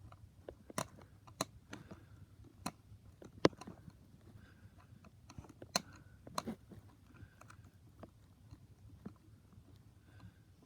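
Irregular sharp clicks and small knocks of plastic toy-train parts being handled and pried apart, with one louder click about three and a half seconds in.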